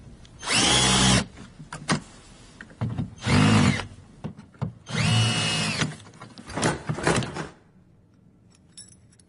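Electric drill running in three short bursts, each spinning up to a steady whine, with a few clicks and knocks between them: a new door lock being fitted.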